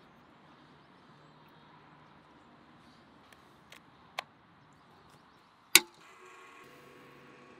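Two small clicks as a power cord's plug and socket are pushed together, then a sharp, loud click of the toggle switch on an electric rotisserie motor box. Right after the switch the spit motor starts, running with a steady hum.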